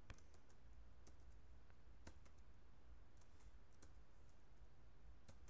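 Faint, scattered clicks of computer keys being typed.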